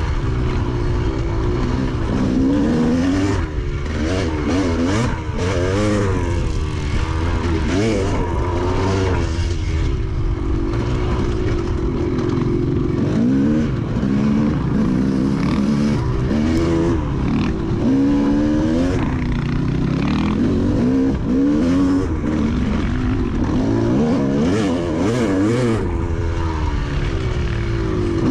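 Dirt bike engine, heard from the rider's helmet-mounted camera, revving up and falling back again and again as the throttle is opened and closed along a dirt trail.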